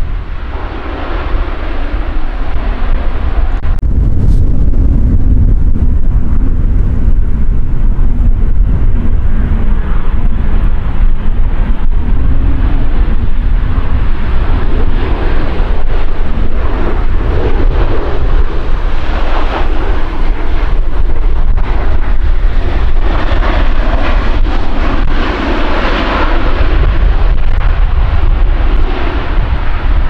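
Jet engines of Boeing 737s landing, their noise running continuously and swelling as an aircraft flares and touches down, under heavy gusting wind rumble on the microphone.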